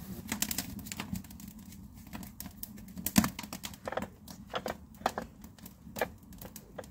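Dry straw fire in a clay chulha crackling, with irregular sharp pops and clicks, the loudest about three seconds in.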